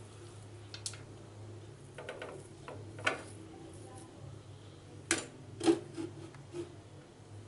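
A plastic slotted spoon scooping upma and knocking against the pan and a plastic plate: a handful of sharp knocks and scrapes, the loudest two about five and six seconds in, over a low steady hum.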